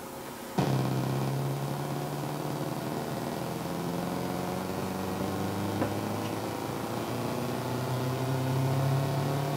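A raw, buzzy synth note from Logic's ES1 synthesizer run through a bit-crusher, starting suddenly about half a second in and holding steady while its pitch slowly bends upward: a synth rise for a build-up into a drop.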